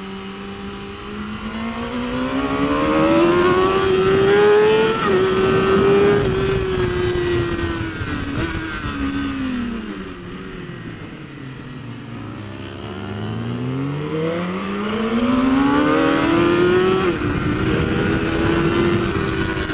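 BMW S1000RR superbike's inline-four engine heard onboard at speed. The revs climb with a small dip at a gear change about five seconds in, fall low in the middle as the bike slows and shifts down, then climb again to a peak near the end. Rushing air noise runs under the engine.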